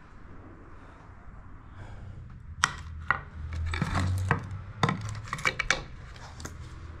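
Broken glass and ceramic shards clinking and scraping on a debris-strewn floor as a broken ceramic relief piece is handled and laid down among them. Faint steady background noise gives way about two and a half seconds in to a run of sharp clinks.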